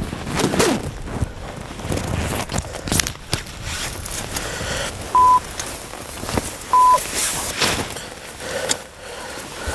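Rustling and snapping of blind fabric and brush being handled, with irregular clicks. Two short electronic beeps of one steady pitch, about a second and a half apart in the middle, stand out louder than the rustling.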